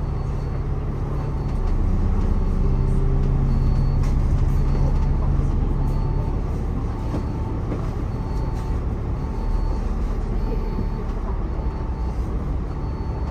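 City bus engine running steadily, pulling harder for a few seconds about two seconds in, then easing back. A short electronic beep repeats about once a second over the rumble.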